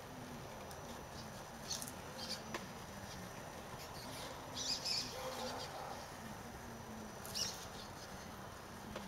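Axial SCX10 RC rock crawler's electric motor and gearbox whining faintly and unevenly as it creeps over rock slabs, with a few short, sharp, high chirp-like sounds standing out.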